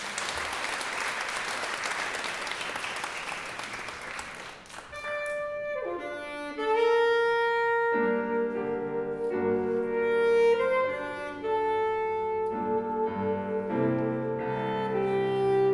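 Audience applauding for about five seconds, then a jazz big band starts playing: saxophones open with long held chords over piano, and lower parts come in about eight seconds in.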